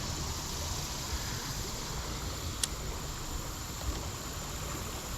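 Steady outdoor wash of creek water, with wind buffeting the microphone, and a single sharp click about two and a half seconds in.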